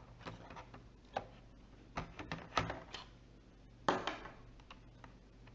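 Sharp clicks and light knocks of a laptop hard drive and its metal frame being handled, a quick cluster about two seconds in and the loudest knock just before four seconds.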